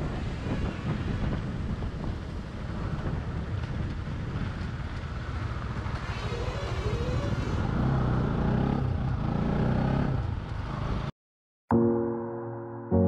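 Motorcycle riding: wind buffeting the helmet-mounted microphone over the engine's running note. Near the end the sound cuts out for a moment and gentle piano music begins.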